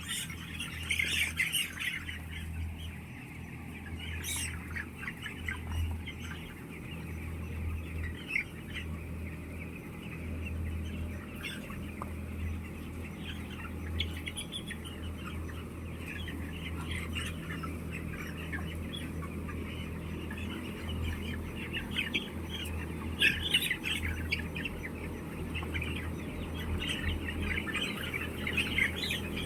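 A flock of chickens in a poultry house calling and squawking, many short overlapping calls throughout, over a steady low hum.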